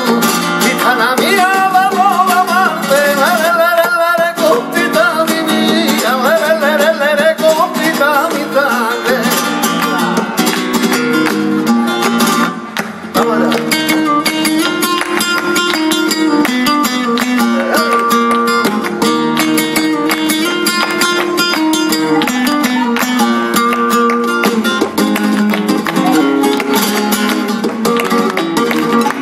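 Flamenco tangos: a male singer over Spanish guitar and handclaps (palmas). The singing fills roughly the first half, then stops briefly, and the guitar carries on with the claps keeping the beat.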